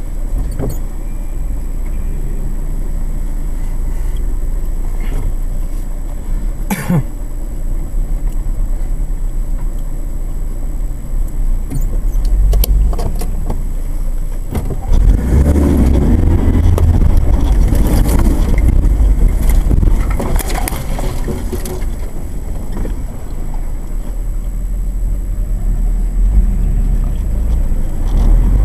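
Four-wheel-drive vehicle's engine and body rumbling, heard from inside the cabin, with scattered knocks and rattles. The rumble grows heavier about halfway through as it moves along the rough dirt track.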